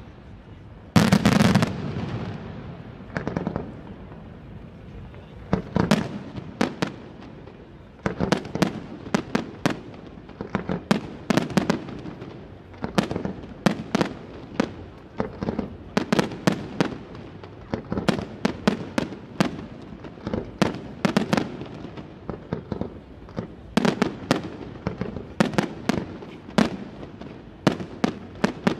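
Aerial fireworks shells bursting: a heavy bang about a second in, then from about eight seconds a rapid string of sharp bangs, several a second.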